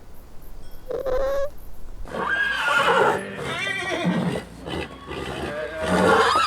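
An animal calling: a short rising call about a second in, then a long, loud, quavering call lasting several seconds.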